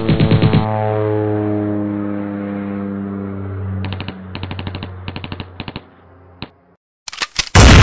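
Machine-gun fire sound effect: a rapid burst, then a humming tone slowly sinking in pitch, then several short bursts of fire, a brief silence, and a very loud blast near the end.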